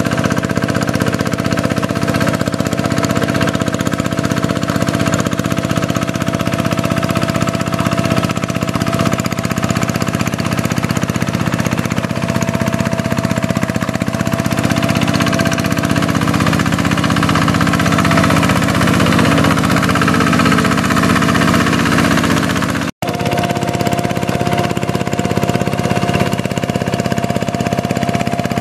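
Two-wheel hand tractor's single-cylinder diesel engine running steadily under load as it pulls a puddling implement on cage wheels through flooded paddy mud. The sound drops out for an instant about three-quarters of the way through.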